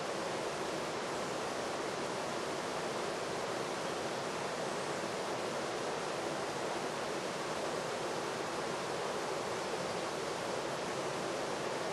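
Steady, even rushing noise that does not change, with no distinct events.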